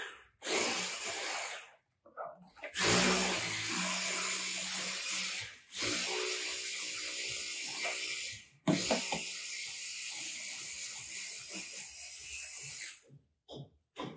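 Terrazzo mixture being worked by hand in a plastic bucket: dense mixing noise that breaks off abruptly and restarts several times.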